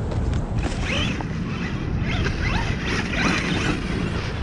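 FTX Carnage 2.0 RC monster truck's electric motor whining, its pitch rising and falling several times as it is throttled on and off, over a low rumble.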